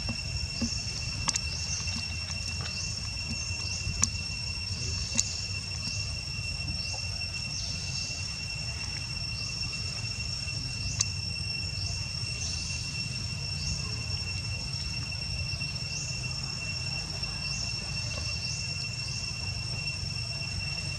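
Insects droning steadily at two high pitches, with a short high chirp repeating a little more than once a second, over a low rumble; a few sharp clicks stand out, the loudest about four and five seconds in.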